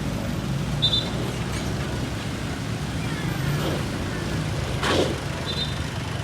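Heavy bus engine running amid roadside traffic noise, with a short whoosh about five seconds in and two brief high chirps, one about a second in and one near the end.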